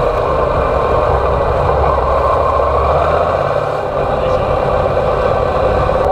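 Yamaha TDM 850's parallel-twin engine running, picked up by a handlebar-mounted camera with heavy wind noise over it. The engine note shifts and the level dips briefly about four seconds in.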